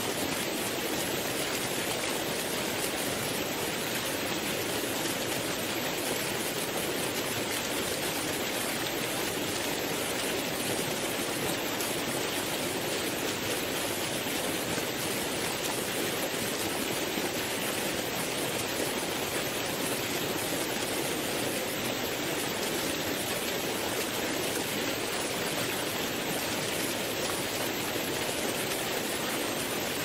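Waterfall and river rapids rushing steadily: an even, unbroken hiss of falling and tumbling water, stronger in the middle and upper pitches than in the low rumble.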